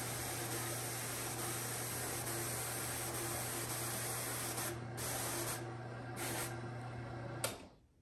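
Electric motor of a Clemes & Clemes Crankless Doublewide drum carder running steadily with a constant hum as the drum spins, then switched off with a click about seven and a half seconds in, the sound dropping away suddenly.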